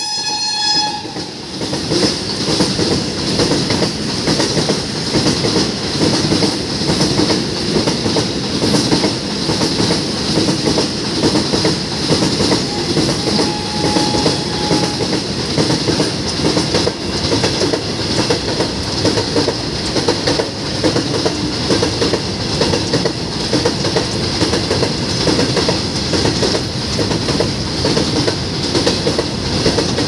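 WAG-9H electric locomotive's horn sounding, cutting off about a second in. After it, the wagons of a heavily loaded goods train run past at speed: a steady, loud rush of wheels on rail.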